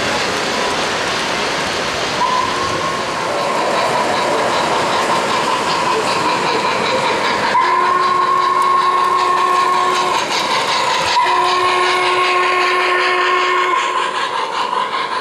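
O-gauge model steam locomotive's sound system blowing two long whistle blasts, each about two and a half seconds, over the steady rumble and clatter of model trains running on three-rail track.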